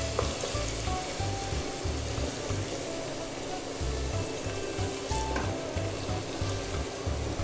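Julienned ginger frying in hot oil, sizzling steadily, with background music underneath.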